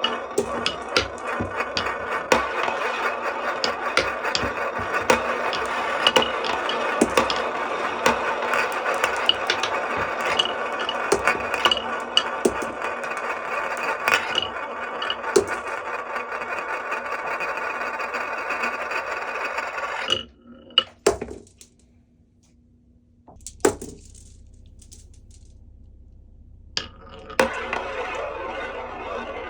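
Glass marbles rolling and clattering down a HABA wooden marble run: a steady rolling rumble with many sharp clicks as they hit the wooden track. About twenty seconds in it cuts off, leaving a few scattered clicks, and the rolling starts again near the end.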